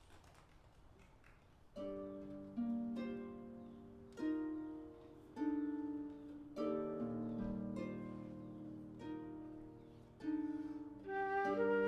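Harp playing a slow introduction of plucked chords, each one ringing and fading, starting about two seconds in. A flute joins near the end.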